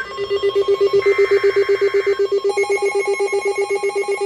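Electronic alert tone pulsing rapidly and evenly, like a trilling phone ring. A second, higher tone joins about two and a half seconds in.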